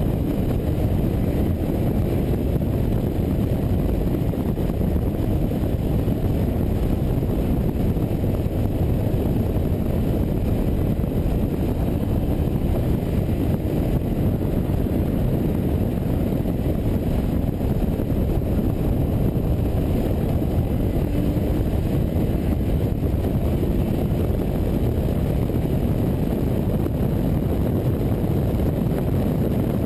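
Car driving at speed, heard through a camera mounted outside on its body beside the front wheel: a steady rumble of wind, tyre and engine noise.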